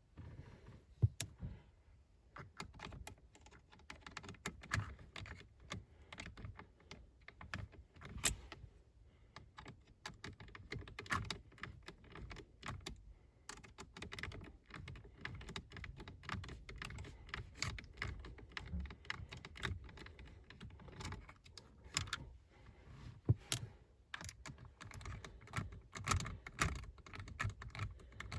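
Irregular small clicks, taps and rattles of a hand tool against metal and plastic as the T20 Torx bolts holding a VW Golf steering column clock spring unit are undone.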